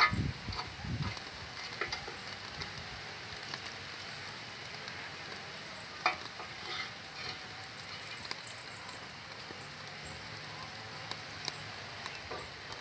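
Chicken wrapped in foil grilling over a wood fire, with a steady sizzling hiss and scattered crackles and pops from the burning wood. A sharp pop about six seconds in is among the loudest.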